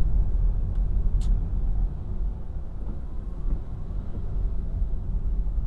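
Low rumble of a car's engine and tyres on a wet road, heard from inside the cabin, easing off about two seconds in. A brief high hiss about a second in.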